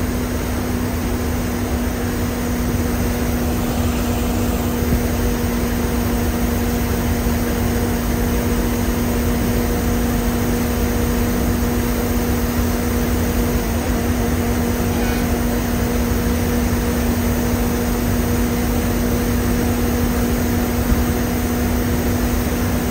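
Steady drone inside the cabin of a moving air-conditioned coach: engine, tyres on the road and the air-conditioning together, with a constant hum throughout.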